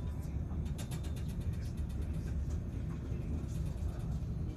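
Passenger train running, heard from inside the carriage: a steady low rumble, with a short run of rapid, evenly spaced clicking about a second in.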